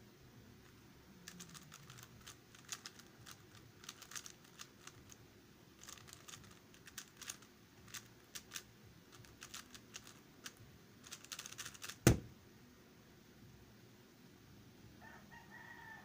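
Stickerless MF3RS 3x3 speedcube being turned very fast: rapid runs of plastic clicks and clacks with short pauses between them, then one loud knock about twelve seconds in.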